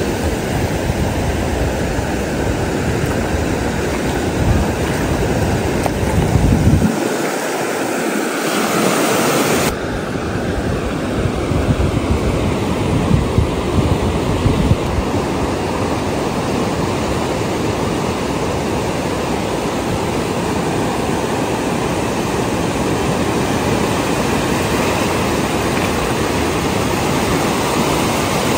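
Ocean surf breaking and washing up a sandy beach: a steady rush of waves. Wind buffets the microphone with a low rumble during the first several seconds.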